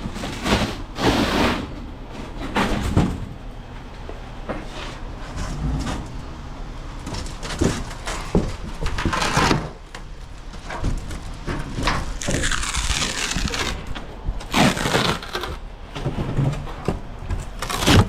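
A steel door's thin metal skin being pulled and pried off its styrofoam core and wood frame, with irregular cracks, knocks and scrapes as the foam and wood break apart. It includes a longer crackling, scraping tear about two-thirds of the way through.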